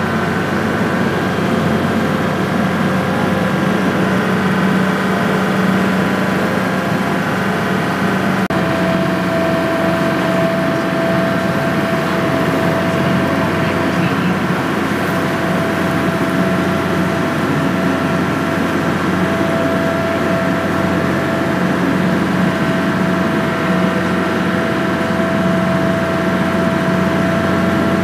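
Ferry boat's engine running steadily under way, heard from on board as a constant hum of several tones. A higher whine joins in about eight seconds in.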